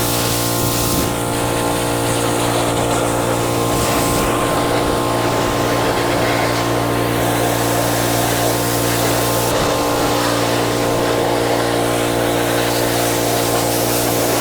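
Small gasoline engine running at a steady speed, with a water spray hissing over it; the hiss changes several times, as the spray is aimed or cut.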